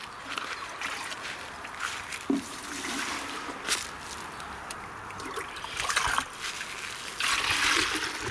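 Water being poured onto potting soil, trickling and splashing, with a louder stretch of pouring about a second before the end.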